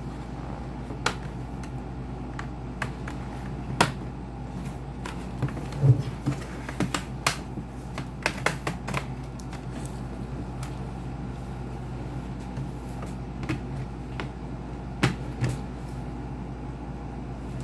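Scattered plastic and metal clicks and taps from handling a laptop's casing and parts as it is being opened up, irregularly spaced, the loudest about six seconds in, over a steady low hum.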